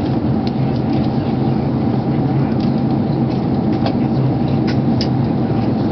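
Airbus A380 cabin noise in flight: a steady, loud, low drone, with a few faint clicks.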